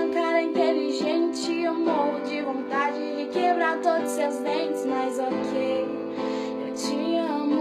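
Background music: a pop song with a female voice singing over instrumental backing.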